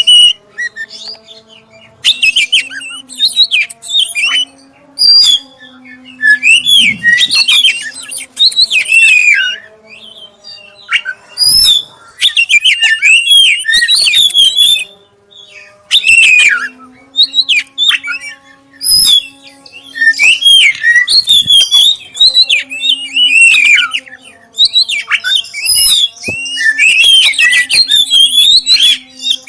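Black-breasted oriental magpie-robin (kacer) singing loud, clear, varied phrases of quick whistles and chatters. The phrases come in bursts of a second or two with short pauses between them. It is a lure recording meant to provoke other kacer into singing.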